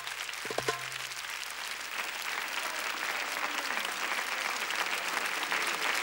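A last stroke or two on a hand drum about half a second in ends the drum solo, then an audience applauds steadily.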